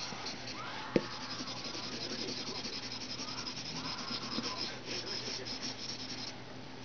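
Drawing pencil scratching and rubbing on paper in quick back-and-forth shading strokes, stopping a little after six seconds in. A single sharp click about a second in.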